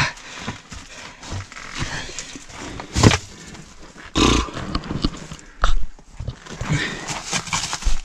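A person breathing hard while clambering down among broken concrete blocks, with scuffs and knocks of shoes and hands on the rubble. The sharpest knock comes about three seconds in.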